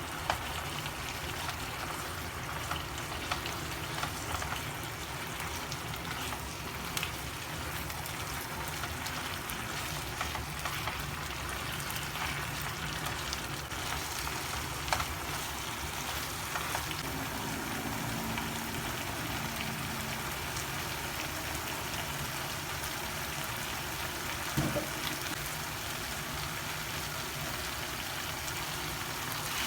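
Food frying in hot oil in a pan: a steady sizzle with scattered small pops and ticks.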